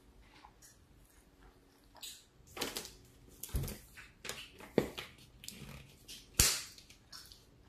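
Close-up eating sounds of someone chewing a mouthful of cheeseburger: a run of short wet clicks and smacks, with the sharpest smack about six seconds in.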